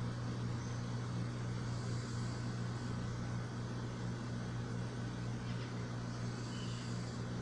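Steady low electrical hum, even in level throughout, with a faint hiss behind it.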